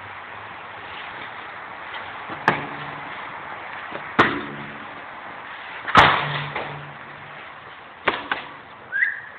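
A ball kicked hard three times, about two seconds apart, each smack echoing off the stone floor and walls of a covered portico. Two quicker knocks follow, and a brief rising squeak comes near the end.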